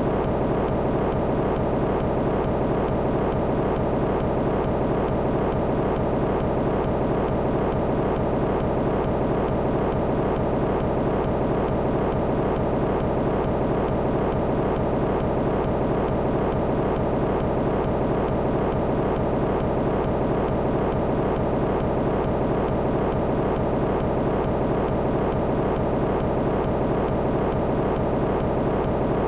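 A steady, dense droning noise that never changes in level, with a faint, evenly repeating pulse running through it.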